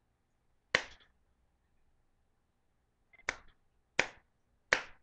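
Hand smacking an iPod touch: four sharp hits, one about a second in, then three in quick succession near the end.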